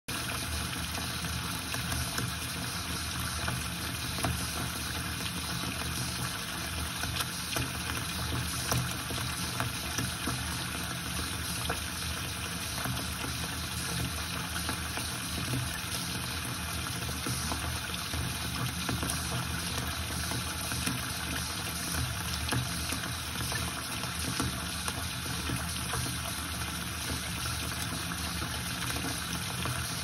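Water running from a tap in a steady stream into a glass bowl already full of water, giving an even, continuous splashing.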